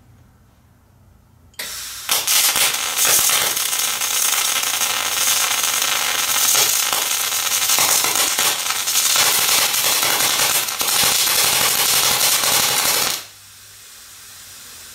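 Fronius TransSteel MIG welding arc at 27 volts with 90/10 argon-CO2 gas, starting about one and a half seconds in and running for about eleven seconds as a loud, dense crackling hiss. It starts in spray transfer and then falls into some short-circuit crackle, so it is not a true spray transfer. The arc cuts off suddenly near the end.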